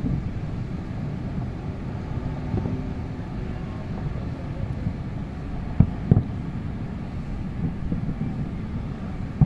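Distant fireworks going off as dull low thumps, two close together about six seconds in and a few fainter ones elsewhere, over a steady low city rumble and wind on the microphone.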